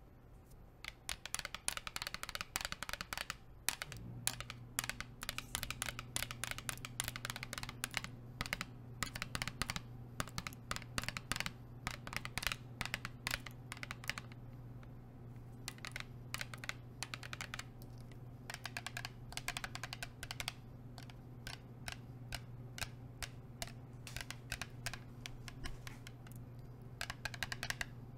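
Long metal nail rings tapping quickly on a water bottle, in rapid runs of light clicks with short pauses between them. A low steady hum comes in about four seconds in.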